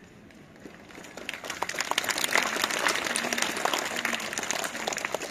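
Audience of schoolchildren breaking into applause about a second in, a dense patter of many hands clapping.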